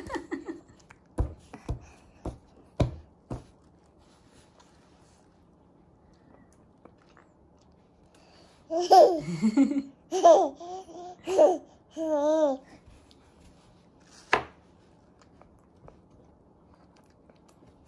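An 8-month-old baby babbling and laughing in a short run of wavering vocal bursts past the middle. Before that come a few light knocks, and another sharp knock follows later.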